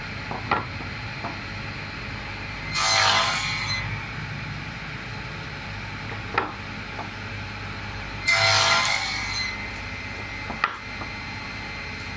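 Table saw running with a steady hum, its blade cutting short pieces off a wooden strip on a crosscut sled twice, each cut a loud stretch of sawing noise about a second long, about three seconds in and again about eight seconds in. A few sharp knocks of wood come between the cuts.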